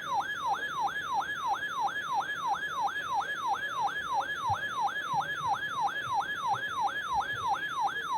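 Electronic emergency alert siren tone signalling a severe thunderstorm warning: a rapid falling sweep repeated nearly four times a second.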